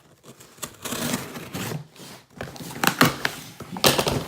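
Cardboard shipping box being opened and handled by hand: scraping and rustling of flaps and packing, with a few sharp clacks about three and four seconds in.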